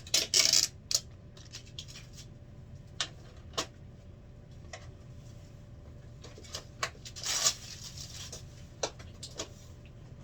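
Plastic packaging wrap crinkling and rustling as it is pulled off by hand, in short irregular bursts with scattered light clicks and taps; the loudest bursts come right at the start and about seven seconds in.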